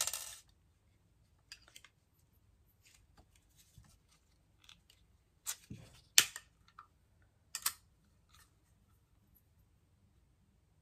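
Scattered small clicks and taps of a rotary cutter's plastic body and metal blade being handled while a blade that won't go back on is refitted. The sharpest click comes about six seconds in, with a few more just before and after.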